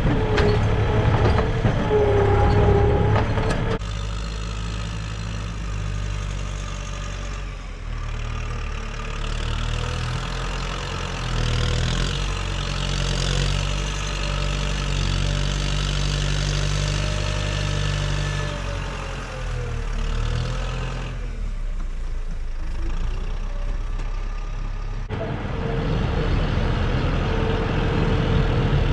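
Farm tractor's diesel engine running under load as its front loader bucket pushes manure. The sound changes abruptly several times.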